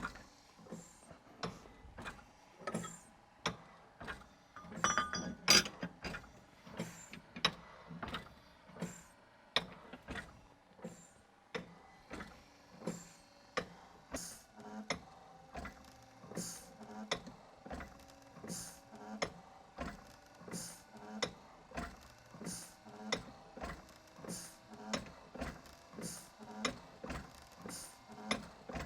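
A mechanical ventilator running, its mechanism clicking in an even rhythm of about one and a half clicks a second, with a louder patch of clicks about five seconds in and faint steady tones underneath later on.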